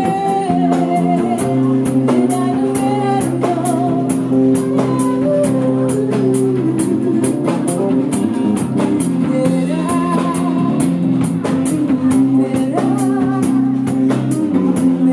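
Live Brazilian MPB band: a woman sings the lead into a microphone, backed by acoustic guitars, bass and a drum kit whose cymbals tick steadily through the song.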